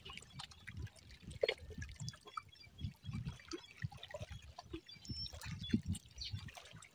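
Small sea waves lapping and trickling at the water's edge, with faint, irregular little splashes.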